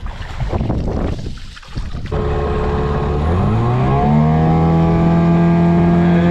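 Rustling, windy handling noise, then about two seconds in an engine comes in suddenly, rises in pitch over about a second and settles into a steady, even run.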